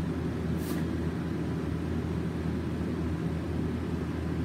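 A steady low rumble and hum with no speech, and one faint tick under a second in.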